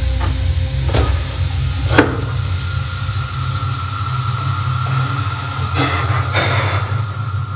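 Film sound design: a loud, steady low drone under a constant hiss. A sharp hit comes about two seconds in, and a thin high tone is held after it.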